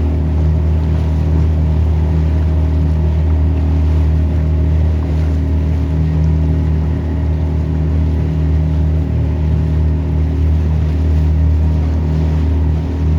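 Motorboat engine running steadily at a constant speed, a low, even drone.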